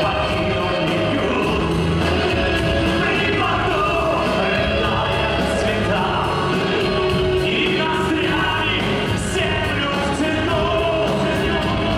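Live rock band playing a ballad: a male lead singer over electric guitar and drums, with a full band sound that carries on without a break.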